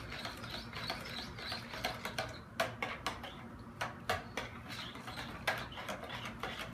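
A spoon stirring a thick, creamy fruit salad in a large mixing bowl, with irregular clicks and knocks of the spoon against the bowl that come sharper and more spaced out from about halfway in.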